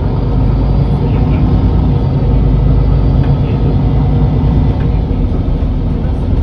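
MAN NL323 Lion's City city bus's diesel engine idling with a steady low rumble.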